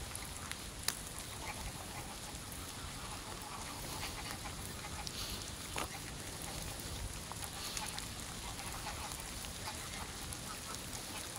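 Ducks and geese calling now and then over a steady hiss of rain, with a few sharp ticks of drops hitting close by.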